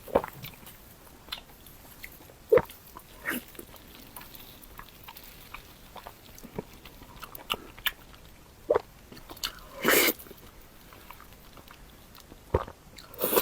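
Close-miked eating: irregular bites and chewing with scattered short crunches, and a louder crunchy burst about ten seconds in.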